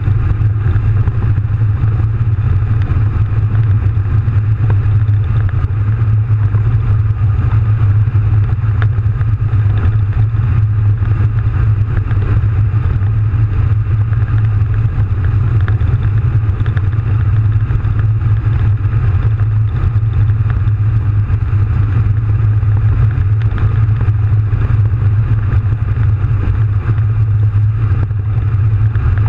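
Soviet AT-S artillery tractor on the move, its 39-litre V12 diesel engine running at a steady pace, heard inside the cab as a loud, steady, deep drone.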